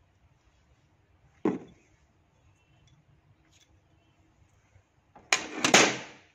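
One sharp knock from handling the parts of a homemade roller bearing puller. Near the end comes a louder clatter of several quick knocks as a hammer is taken up from a tool cart full of spanners.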